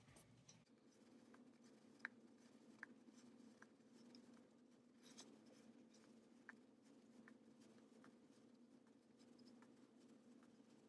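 Near silence: faint rubbing and a few soft ticks from a crochet hook working chunky blanket yarn, over a steady low hum.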